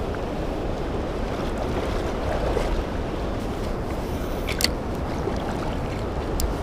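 Fast, high river water rushing and lapping around a wading angler, with wind rumble on the microphone. A couple of sharp clicks stand out, the clearest about four and a half seconds in.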